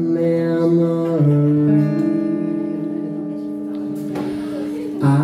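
A man singing a slow song to his own acoustic guitar, holding one long sung note over the ringing chord, with fresh strums near the end.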